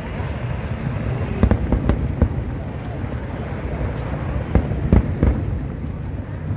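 Aerial fireworks bursting in an irregular rapid series, sharp bangs over a continuous low rumble.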